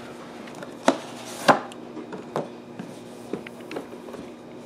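Cardboard product box being handled and set down on a stone countertop: two sharp knocks about a second in, the second one louder, then a few lighter taps.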